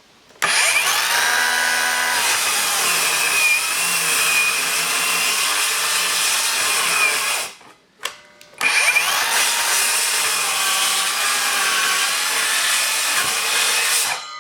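Ridgid 18-volt cordless sliding compound miter saw spinning up and cutting a 2x8 at a 45-degree bevel. It runs in two long stretches with a short stop about halfway through. The cut reaches almost the full depth of the 2x8.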